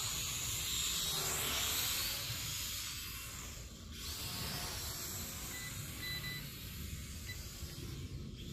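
Steady hiss with a low rumble underneath, and two faint short high beeps about six seconds in.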